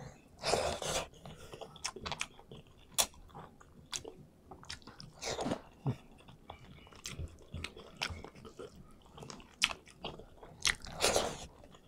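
A person chewing a mouthful of rice with irregular mouth clicks, and three louder stretches of chewing: about half a second in, midway, and near the end.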